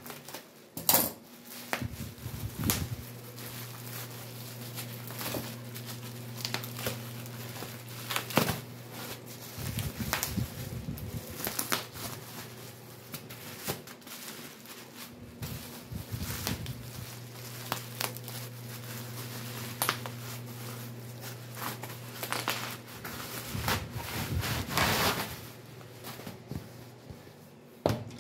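Plastic bubble-wrap mailer crinkling and rustling as it is cut open with kitchen scissors and the package is pulled out, with sharp snips, clicks and handling knocks throughout. A steady low hum runs underneath and drops out now and then.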